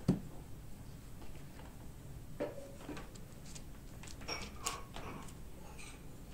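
Light handling sounds of raw filled dough rounds being set down on baking paper: a dull thump at the start, then a few soft taps and paper rustles, the clearest about four and a half seconds in.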